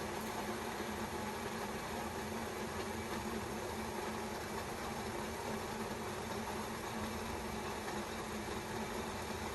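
Kettle of water at a steady boil: a continuous even rushing hiss with a faint low hum underneath.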